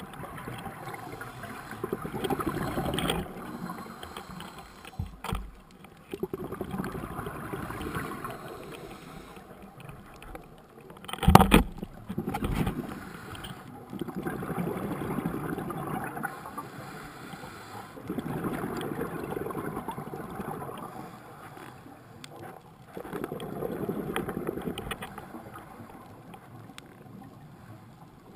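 Scuba regulator breathing underwater: a rush of exhaled bubbles comes in swells every four to five seconds. A single sharp knock sounds about eleven seconds in.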